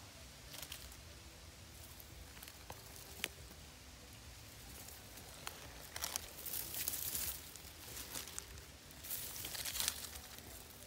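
Dry leaf litter rustling and crackling in irregular short bursts, with a single sharp click about three seconds in.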